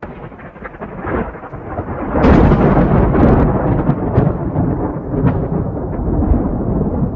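Thunderstorm sound effect: thunder rumbling over rain, swelling into a loud crackling peal about two seconds in and rumbling on more softly.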